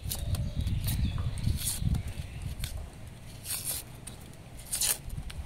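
Red onion skins crackling and tearing in a few short scrapes as they are peeled against a boti, the curved kitchen blade, over a steady low rumble.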